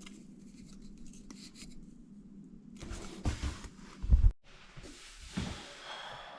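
Hacksaw with a fresh blade cutting through a stainless steel toilet seat fixing bolt: quiet scraping at first, then a few heavy knocks about halfway through, then a rising rasp of sawing near the end.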